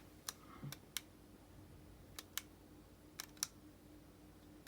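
Xbox One controller's RB bumper button being pressed and released several times, a quick pair of sharp clicks for each press about a second apart. The freshly repaired bumper clicks cleanly.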